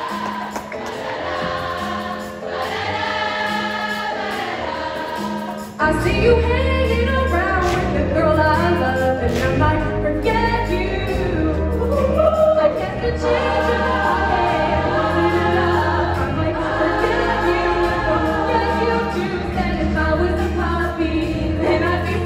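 A large group of women singing together in a stage musical number, with instrumental accompaniment. About six seconds in, heavy bass joins and the music gets louder.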